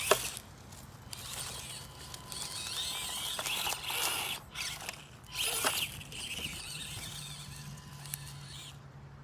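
Axial SCX24 Deadbolt micro rock crawler driving: its small brushed motor and plastic gears give a steady low hum with a thin, hissy whine that rises and falls with the throttle. A sharp click just after the start and another about 5.7 s in, from the little truck knocking on rock.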